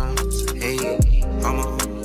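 Background hip hop music: a beat with hi-hats and a deep bass note that slides down in pitch about a second in.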